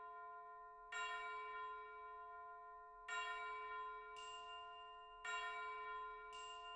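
Background music of soft, bell-like chime notes, a new chord struck about every two seconds and left to ring and fade, with a brief high shimmer between strikes.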